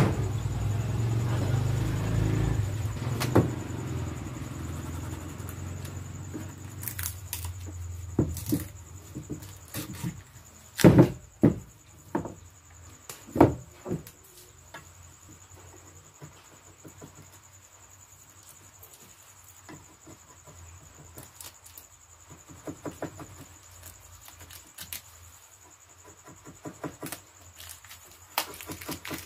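A low rumble of passing road traffic fades out, then a few sharp knocks of the wooden cricket bat being handled on a wooden workbench. Near the end come quick scraping strokes of a flat blade over the bat's face, lifting off a sticker.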